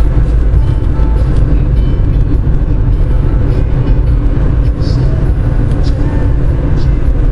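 Road and engine noise heard inside a moving car's cabin: a loud, steady low rumble.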